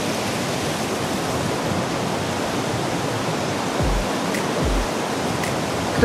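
Steady rushing of a mountain waterfall tumbling over rocks, with two brief low thumps about four seconds in.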